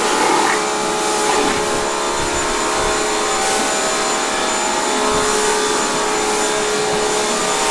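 Pressure washer running steadily, spraying the floor through a rotary surface cleaner attachment: an even hiss of water with a steady motor whine over it.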